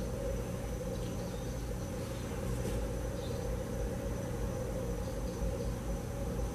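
Steady room tone: a constant low electrical hum with a thin high whine over it, and a faint brief rustle about two and a half seconds in.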